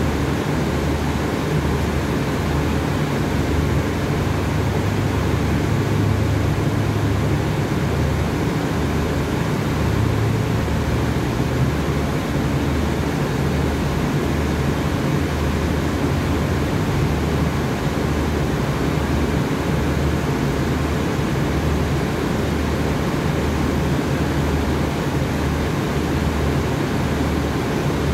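Diesel-hauled passenger train standing at the platform, running steadily: an even mechanical hum with a low throb that pulses about once a second.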